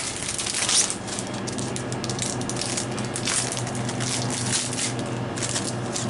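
Plastic trading-card sleeves being pulled out of their box and handled, giving a run of short crinkling, crackling scrapes over a steady low hum.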